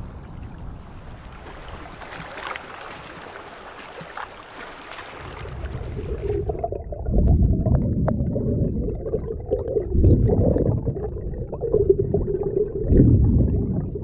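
A canoe paddled through choppy open water: wind and lapping water, then, about six seconds in, the sound turns muffled as it is heard from underwater, with a surge of rushing water from each paddle stroke about every three seconds.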